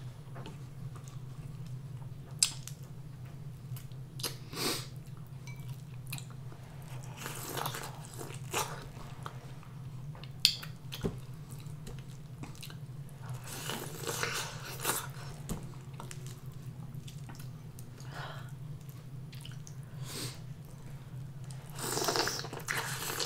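Close-miked eating: chewing and mouth noises with scattered sharp clicks, then biting into a buttered corn on the cob near the end, the loudest part. A steady low hum runs underneath.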